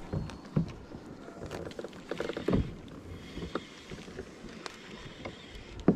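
Baitcasting reel being cranked to bring in a hooked fish, with irregular clicks and rattles of rod and reel handling. A few heavier thumps, about half a second in, around two and a half seconds in and at the end, are the loudest sounds.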